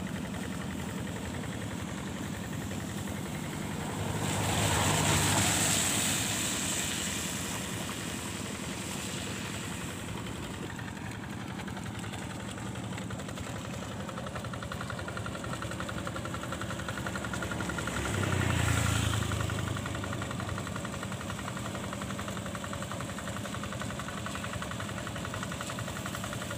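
Single-cylinder diesel engine of a two-wheel hand tractor running steadily as it drags a levelling plank through a flooded rice paddy. It swells louder twice, about 4 seconds in and again about 18 seconds in.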